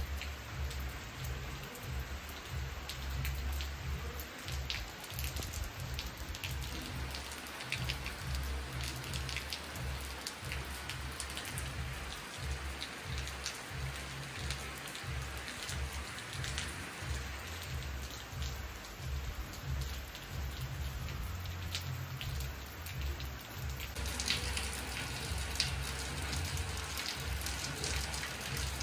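Steady rain falling on paving and plants, with many small drop ticks through it and an uneven low rumble underneath. The rain grows a little louder and brighter about three-quarters of the way through.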